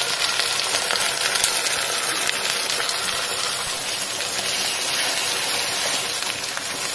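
Ground masala paste of fried onion, tomato and chana being poured into hot oil in a pan and sizzling steadily as it starts to fry.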